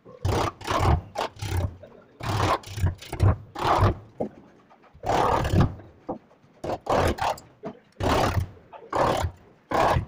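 Wood chisel pushed by hand into the edge of a wooden door, paring out the mortise for a lock: a quick series of rough scraping strokes, about two a second, with short pauses between them.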